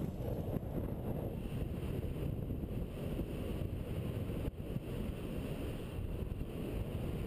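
Steady wind rushing and buffeting over a GoPro's microphone in paraglider flight.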